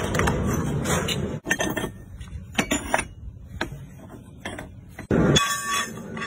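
Twin-shaft industrial shredder's rotating cutter discs chewing up a steel hand pallet jack: irregular metallic crunching, clanking and grinding. The middle stretch is quieter, with sharp clicks and knocks, and a loud crunch with a shrill metal squeal comes near the end.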